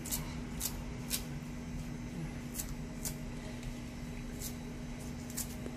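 Kitchen scissors snipping spring onion stalks, about seven short crisp snips at an uneven pace, over a steady low hum.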